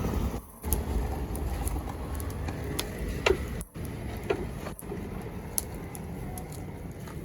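Wood bonfire burning: scattered sharp crackles and pops over a low steady rumble, with two short falling whistles about three and four seconds in.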